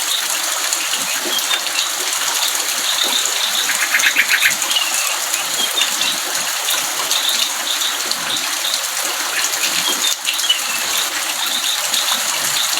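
Kutilang emas, a bulbul, calling in short repeated chirps, with a fast trill about four seconds in, over a loud steady hiss.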